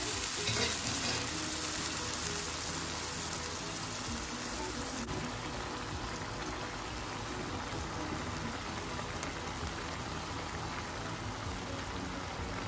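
Broth with minced meat, rice and zucchini simmering in a frying pan: a steady crackling hiss of bubbling liquid, stirred through with a wooden spoon.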